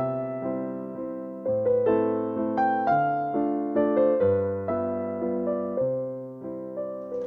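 Background music: a piano-like keyboard playing a gentle repeating melody over held bass notes, each note struck and fading.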